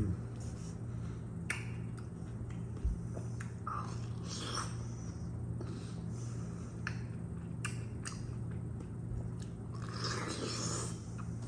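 A person chewing and eating, with small wet mouth clicks and smacks scattered through, over a steady low electrical hum.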